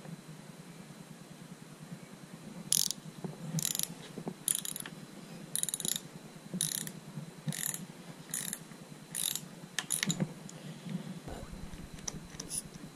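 Socket ratchet wrench working a nut on a motorcycle's clutch lever mount with repeated short strokes: about nine brief clicking rasps, roughly one a second, starting about three seconds in and stopping about ten seconds in.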